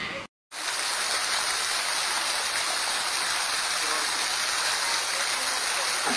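Steady hiss of falling or running water, even and unbroken, which begins after a brief dropout near the start.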